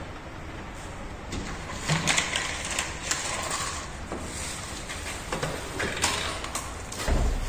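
Plastic cable duct and its cover being handled and fitted, giving irregular clicks, knocks and scraping.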